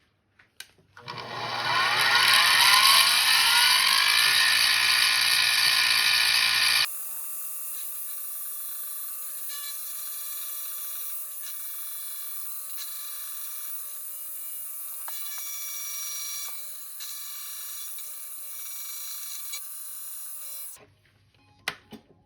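Mini milling machine running: its motor spins up with a rising whine for about five seconds. Then the sound drops suddenly to a quieter, steady high-pitched machining sound that stops shortly before the end.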